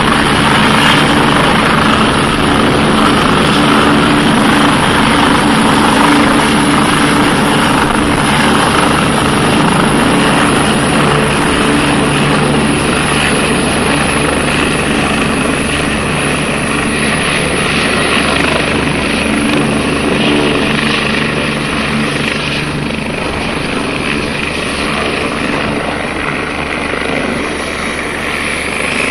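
Airbus Helicopters EC145 twin-turbine helicopter running, its rotor and turbine noise steady with a thin high whine, gradually getting a little quieter.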